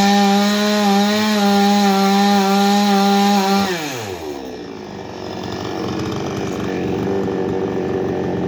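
Two-stroke chainsaw engine running at high revs, then the throttle is released a little under four seconds in and the engine drops quickly to a steady, pulsing idle.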